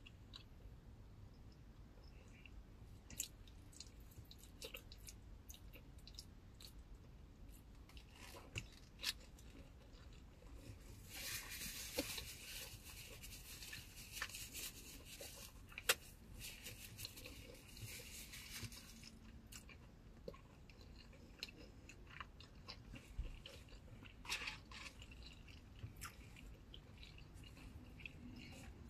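A person chewing and biting into a takeout meal of fried rice and lo mein close to the microphone, with scattered small clicks and crunches. A steady hiss runs for about eight seconds midway.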